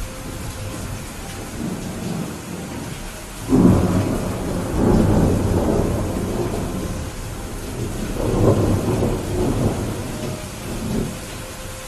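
Steady rain with a roll of thunder: a sudden low rumble breaks in about a third of the way through, swells twice more, and dies away near the end.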